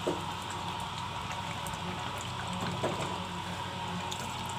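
Water poured in a steady stream into an aluminium pressure cooker pot of thick mutton curry.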